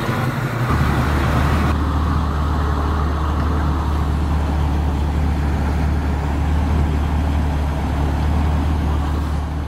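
Hot rod roadster's exposed engine running at a slow roll, a deep, steady low rumble; just before it, a yellow muscle car's engine is heard briefly.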